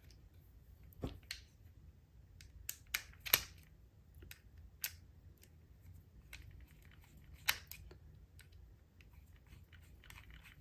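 Small plastic clicks and taps from handling and fitting parts back onto an HO-scale model locomotive's shell: a scattered handful, the sharpest about three seconds in, with gaps of quiet between.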